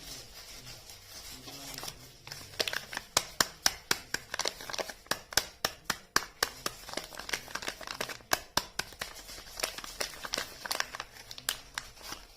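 Soap packaging being unwrapped by hand: soft crinkling at first, then a dense run of sharp crinkles and crackles, roughly three a second, from about two seconds in.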